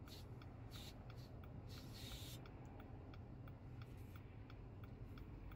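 A car's turn-signal indicator clicking steadily, about three ticks a second, over the low hum of the engine idling. Brief hissing swishes come near the start and about two seconds in.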